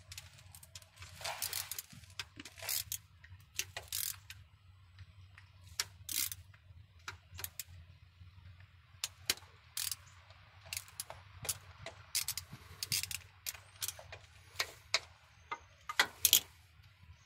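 Hand socket ratchet clicking in short irregular runs as the 10 mm bolt holding the crankshaft position sensor is backed out, with a couple of louder metallic clacks near the end.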